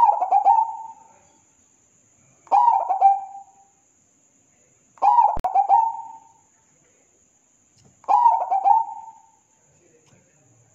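Zebra dove singing: four cooing phrases, one about every two and a half seconds, each a quick stuttering run of notes that ends in a longer drawn-out coo.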